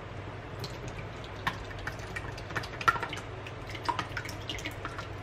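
Thick, warm homemade yogurt pouring from a stainless steel pot into a mesh yogurt strainer: irregular wet plops and splats, several a second, over a low steady hum.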